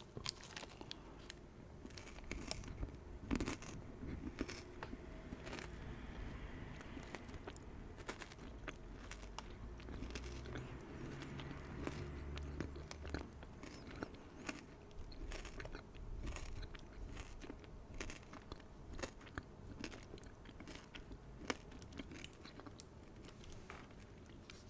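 Close-up chewing and crunching of a peanut and dark chocolate protein bar, with many small mouth clicks.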